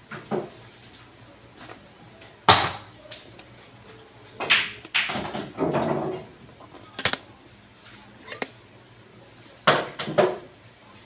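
A few sharp, separate clacks of hard objects striking, the loudest about two and a half seconds in, with a short stretch of clattering around the middle.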